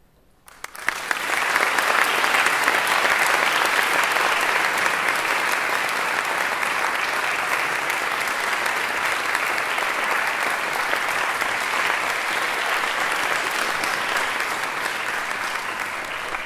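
Audience applauding: after a hush, clapping breaks out about a second in, swells quickly, then carries on steadily, easing slightly near the end.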